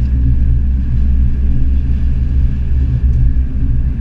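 Car engine and road noise heard from inside the cabin: a steady low rumble at an even cruising speed.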